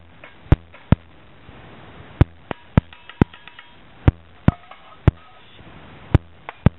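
A tin can knocked against the rim of a rice cooker pot to shake out canned mushrooms: about a dozen sharp metallic taps at irregular intervals, a few with a brief ring.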